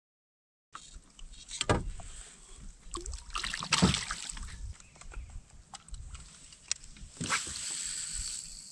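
Silence for under a second, then handling noise aboard a fishing kayak: several knocks and thumps against the plastic hull, the loudest about two and four seconds in, over light water and wind noise. Near the end the angler makes a cast, and a steady high whir carries on as the reel pays out line.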